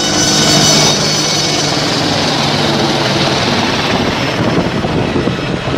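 Helicopter running, a loud steady rush of engine and rotor noise with a low hum underneath.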